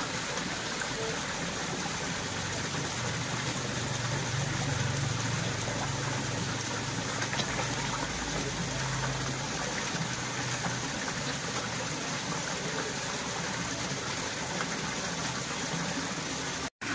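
Water pouring and splashing steadily into a koi pond from an inflow spout, with a faint low hum in the middle stretch. The sound cuts out for an instant near the end.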